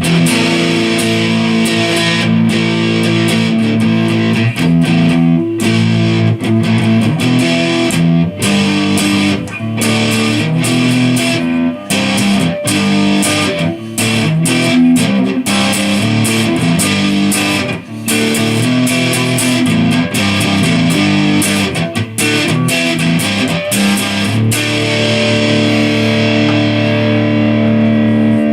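Harley Benton CST-24 electric guitar strummed through an amp with some distortion: a held chord at the start, then choppy, stopped chord strums, and a long ringing chord near the end.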